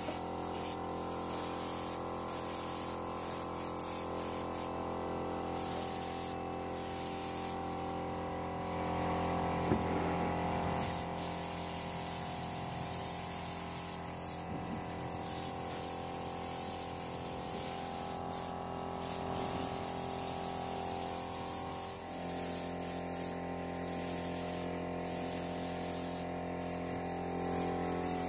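Compressed-air gravity-feed spray gun hissing as it sprays polish onto a wooden table, the hiss stopping briefly several times as the trigger is let off, over a steady hum.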